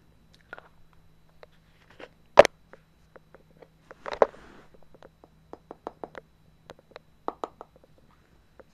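Scattered clicks, taps and a brief rustle from hands handling small containers, with one loud sharp click about two and a half seconds in and a run of quick light ticks later on, over a faint steady hum.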